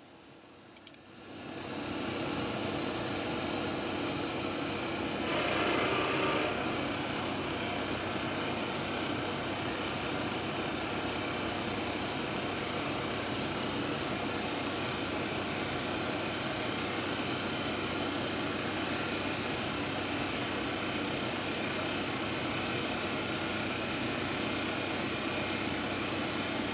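A small metal lathe runs under motor power as a button cutter takes a pass along spinning poplar stock, making a steady whir with the hiss of the cut. It comes up over the first two seconds and is louder for a moment about five seconds in.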